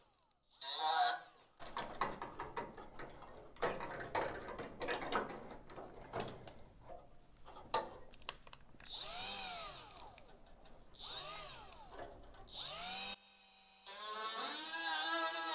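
Cordless drill drilling into the rusty sheet steel of a VW Bus's lower A-post. Several seconds of rattling and clicking as the bit bites the metal are followed by three short trigger pulls, each spinning up and winding down, then a longer steady run near the end.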